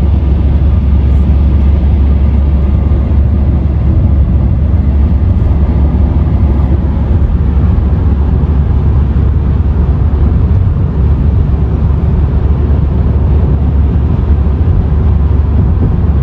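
Car driving at highway speed: a steady, loud low rumble of road and wind noise.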